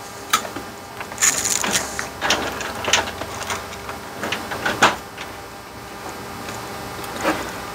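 Scattered short knocks and rubbing as things are handled on a wooden workbench around an instrument-cluster circuit board, including a cotton swab scrubbing flux off the board.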